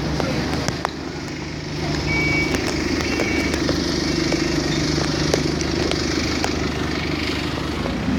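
Road traffic on a city street: vehicle engines running steadily close by.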